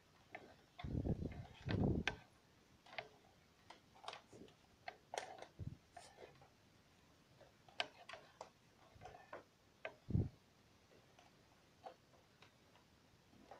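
Extension cable being wound by hand onto a cable reel: irregular light clicks and taps of the cord and reel, with a few duller knocks about one to two seconds in and once more near ten seconds.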